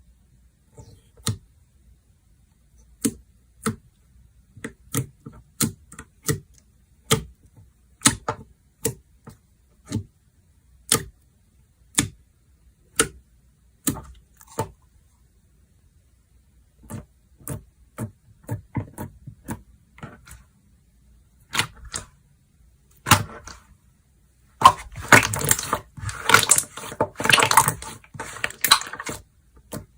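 Slime being worked by hand, giving sharp clicking pops about once a second, then a few seconds of dense crackling near the end.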